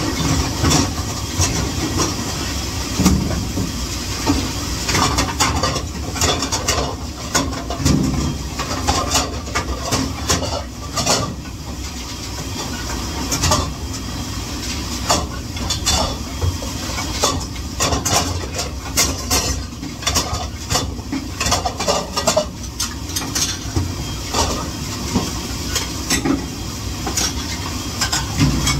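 Dishes and cutlery clinking and clattering in quick, irregular strikes during dishwashing, over a steady low rumble.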